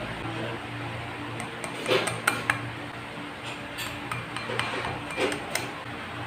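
A plastic spoon and measuring cup clinking and tapping against a glass mixing bowl as cornstarch is spooned in: about six short sharp clicks, bunched around two and five seconds in, over a steady low hum.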